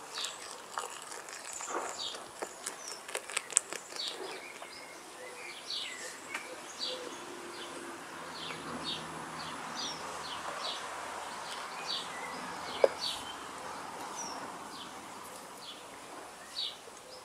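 Small songbirds chirping repeatedly, short high calls every half second or so, over quiet outdoor background noise.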